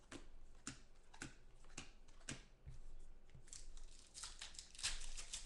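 Faint handling of trading cards: cards flicked and slid against one another with scattered soft clicks, turning into a denser crinkling rustle of plastic card holders and packaging about three and a half seconds in.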